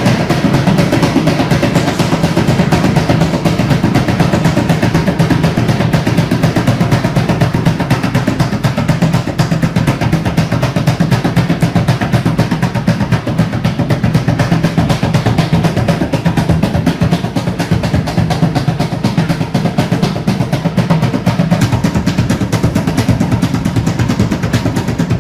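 Homemade hand drum with two speakers mounted inside, beaten rapidly and without pause with both hands: a fast, steady run of low, booming strokes. The drumming shakes the speaker magnets inside, which generates the current that lights a bulb.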